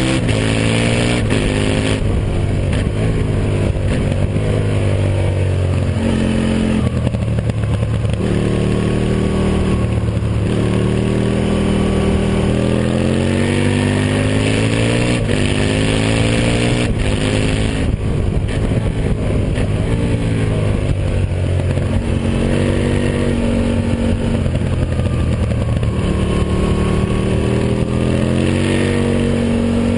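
Aprilia Tuono Factory motorcycle engine running hard, its pitch rising again and again under acceleration and dropping back between pulls. A steady rush of wind and road noise runs underneath.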